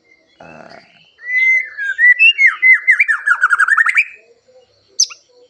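White-rumped shama (murai batu) singing one loud phrase: clear whistled notes that break into a fast run of short descending notes, followed by a single high chip about a second later. A brief soft rustle comes just before the song.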